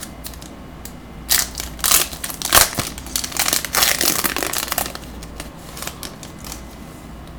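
Plastic wrapper of a trading card pack crinkling and crumpling as it is handled and opened, in a run of irregular bursts between about one and five seconds in.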